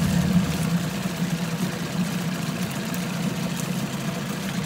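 1982 Johnson 15 hp two-cylinder two-stroke outboard idling steadily on its break-in run after a full powerhead rebuild, burning a rich 16:1 fuel-oil mix.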